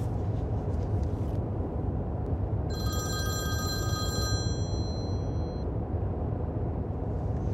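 Mobile phone ringing with an incoming call: a steady electronic ringtone that starts about three seconds in and stops about two to three seconds later, over the steady low rumble of a car's cabin.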